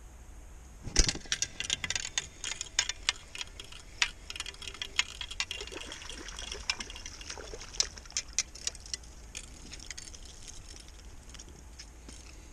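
A hooked trout splashing at the surface as it is reeled in to the bank: a sharp knock about a second in, then a quick run of splashy crackles and clicks that thins out near the end.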